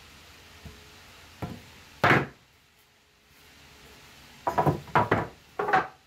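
Wooden 2x4 boards being laid down on a workbench and butted against one another: a loud knock about two seconds in, then a quick run of several knocks near the end as the boards are pushed together.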